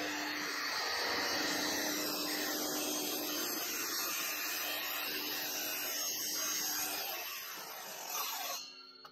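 Sliding compound mitre saw running, its motor whining steadily as the blade is pulled down through a strip of wood. The sound dips slightly about seven seconds in, swells again and stops just before the end.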